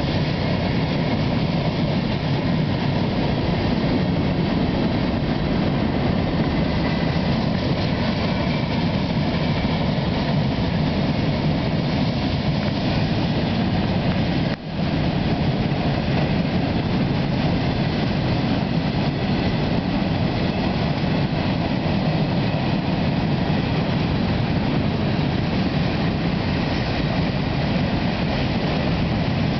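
Freight cars (covered hoppers and a tank car) rolling past on the rails: a steady, dense rolling noise of steel wheels on track, strongest in the low range. The sound dips out for an instant about halfway through.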